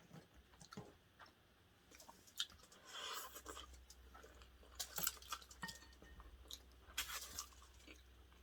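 Close-miked chewing and crunching of food, with scattered small clicks and a few short crunchy bursts.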